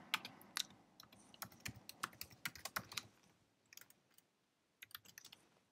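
Typing on a computer keyboard: a run of quick, faint key clicks for about the first three seconds, a pause, then a few more clicks near the end.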